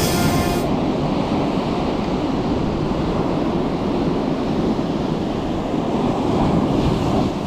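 Ocean surf breaking and washing in, a steady rushing noise, with wind on the microphone. Background music cuts off under a second in.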